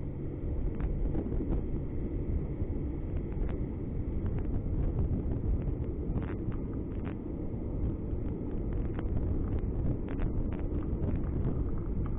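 Steady low rumble of a car driving slowly on a city street, picked up inside the car by a dashcam microphone, with light ticks and rattles at irregular intervals.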